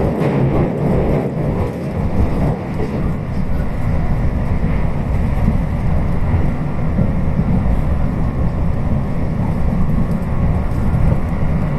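Electric train running: a steady low rumble of wheels on rails that holds even throughout.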